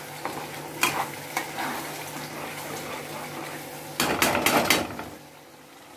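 Spatula scraping and clicking against a kadai as a spice paste of onion, garlic, ginger and green chilli fries in oil, with a soft sizzle underneath. A louder clatter of utensil on pan comes about four seconds in.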